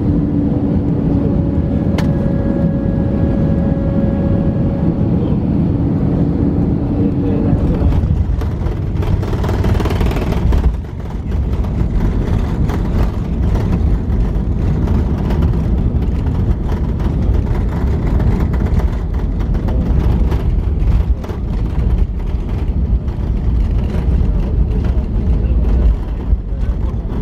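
Cabin noise of an Airbus A319 landing and rolling out on the runway: a steady, loud rumble of engines and wheels, with a sharp knock about two seconds in. From about eight seconds in, a surge of louder noise builds, then drops off abruptly about three seconds later.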